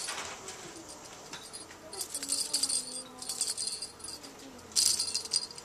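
Small bell on a dangling cat toy jingling as it is shaken, in three short bursts about two seconds in, a little later, and loudest near the end.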